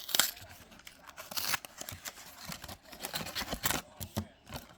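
Trading cards and their pack wrapper being handled: several short bursts of rustling and card stock sliding against card stock.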